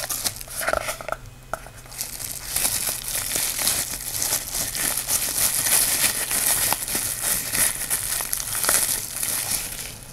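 Packaging crinkling and rustling as it is handled and unwrapped while a flashlight is taken out of its box: a dense crackle of small clicks, strongest through the middle.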